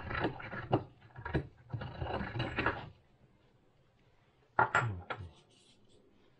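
Ceramic mortar and pestle grinding dried rosemary: a gritty crunching and scraping for about three seconds, then a short pause and a few sharp knocks a little before the end.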